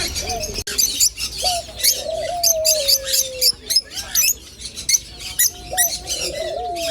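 Many small caged birds chirping and tweeting rapidly at once. Two long, slowly falling lower calls stand out, one about a second and a half in and another near the end.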